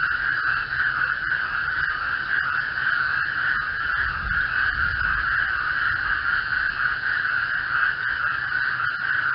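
A dense chorus of many frogs calling together, blending into one continuous, steady, high-pitched drone with no breaks, over a faint low rumble.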